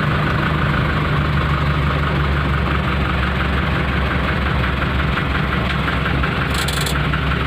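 Diesel engine of a lowboy tractor-trailer truck running steadily at low speed, heard from inside the cab while it creeps through a narrow lane. A brief hiss sounds near the end.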